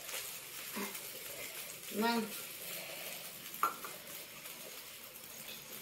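Egg-coated flatbread (anda poli) frying in a flat pan on a gas stove, with a steady sizzling hiss. A single sharp utensil clink sounds a little past halfway.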